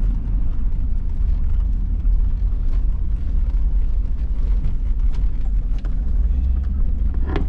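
Vehicle driving slowly over rough ground: a steady low rumble with scattered knocks and rattles.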